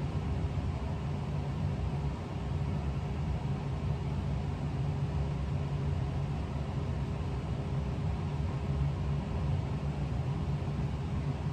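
Steady low hum with an even background noise, unchanging and with no distinct knocks or pours standing out.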